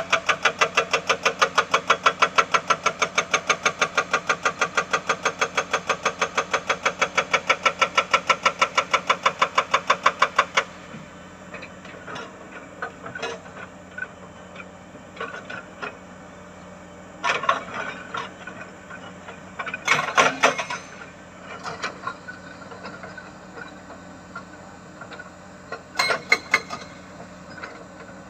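Excavator-mounted hydraulic breaker hammering rock: a rapid, steady stream of blows about five a second that stops abruptly about ten seconds in. After that the excavator's engine runs underneath a few separate clanks and knocks, the loudest about twenty seconds in.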